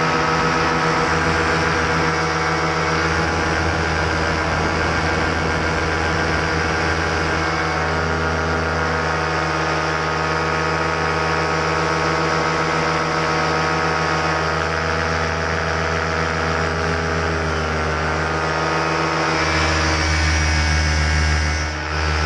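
Paramotor engine and propeller running steadily in flight, loud and close. The low part of the sound gets stronger about nineteen seconds in, and the level dips briefly just before the end.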